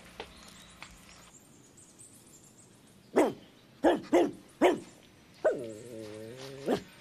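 A dog barks four times in quick succession, then gives one longer, drawn-out whine that drops in pitch and then holds steady for about a second.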